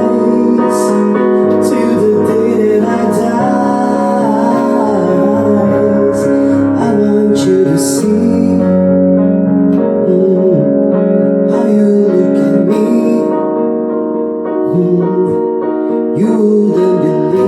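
Music: a pop song with piano accompaniment and a female voice singing.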